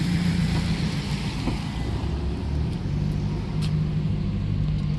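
Street traffic noise: a steady low hum of vehicle engines with road noise.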